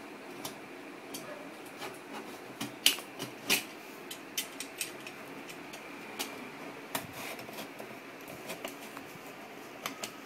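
Box cutter cutting through the packing-tape seal on a cardboard box: scattered sharp clicks and scrapes of the blade and the handled cardboard, the loudest about three seconds in, over a faint steady hiss.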